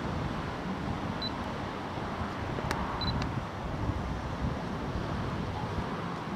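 Low, steady rumble of the approaching BR Class 121 'Bubble Car' diesel railcar, with wind noise on the microphone. Short high camera beeps about a second in and again around the middle, with a sharp shutter-like click.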